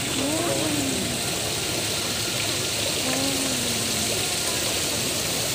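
Water from a fountain spraying and splashing steadily into a shallow koi pond, with faint voices in the background.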